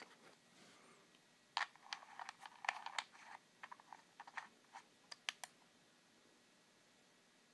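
Irregular small clicks and short scrapes as a Kanboro V3 atomizer is handled and screwed onto a box mod's 510 connector, starting about a second and a half in and stopping after about five seconds. The mod is then reading the atomizer at 0.57 ohm.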